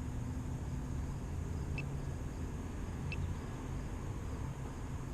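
Steady low rumble with a faint hum, like a running engine or machinery, with two short high-pitched beeps about a second and a half apart.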